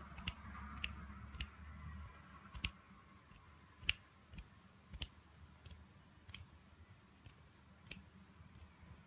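Faint, sharp clicks at uneven intervals, roughly one a second, over quiet room noise.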